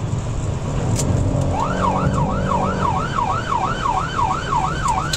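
A car-mounted siren comes on about a second and a half in and sounds a fast yelp, rising and falling about three times a second, over the car's steady engine and road noise. It is the signal for the car ahead to pull over.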